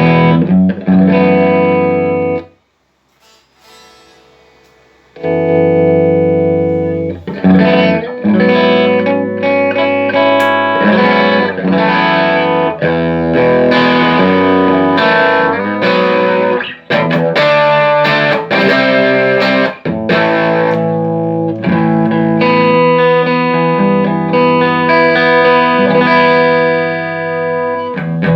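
Electric guitar played through a Fender '57 Custom Tweed valve amplifier, freshly recapped with new coupling capacitors in the preamp and phase inverter. Ringing chords, a pause of about two seconds near the start, then steady chord playing.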